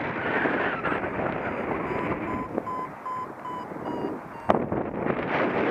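Wind rushing over the microphone, with a paragliding variometer beeping its climb tone in the middle: about seven short, quick beeps, roughly three a second, signalling that the glider is rising. A single sharp knock comes near the end.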